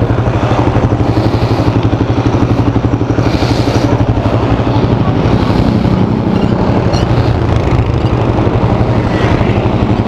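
Suzuki Raider R150 carb's single-cylinder four-stroke engine idling close by, a steady low running note with an even pulsing beat.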